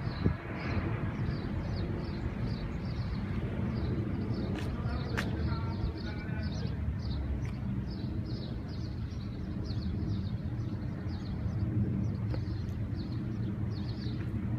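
Outdoor ambience: a steady low rumble of distant traffic, with a small bird chirping over and over at about two chirps a second.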